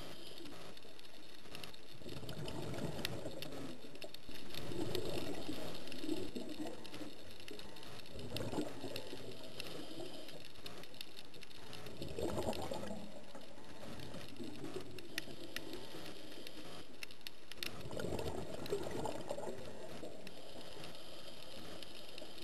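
Underwater scuba breathing: bubbles from the diver's regulator gurgle up in bursts every few seconds, over a steady hiss with scattered faint clicks.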